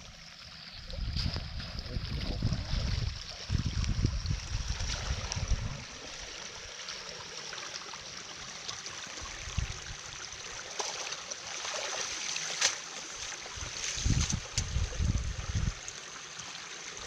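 Water running and trickling, with low rumbling bumps early on and again near the end, and a thin steady high-pitched tone throughout.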